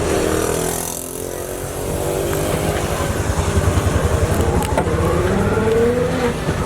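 A motor vehicle's engine running close by with a rapid low pulsing, revving up near the end, in the noise of street traffic.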